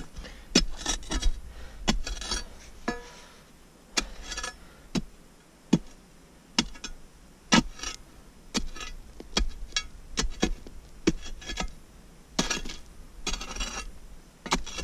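A metal digging tool striking and scraping into rocky gravel while digging pay dirt: sharp, irregular chinks of metal on stone, one or two a second, with a few short scraping passes.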